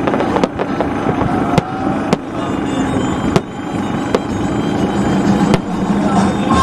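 Aerial fireworks shells bursting in the sky: about six sharp bangs, irregularly spaced a second or so apart, over a steady background din.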